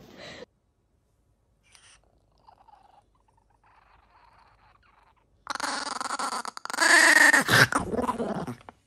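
A Chihuahua growling over its food tray, guarding the food from a reaching hand: two long growls starting about halfway in, the second louder with its pitch wavering.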